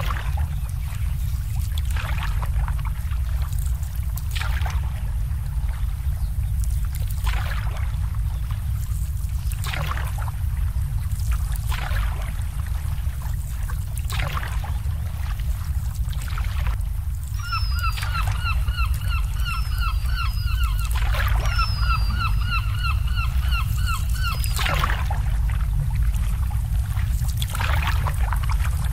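Water lapping against moored boats in short splashes every couple of seconds over a steady low rumble. Past the middle, a bird calls a quick run of repeated notes, about four a second, for several seconds.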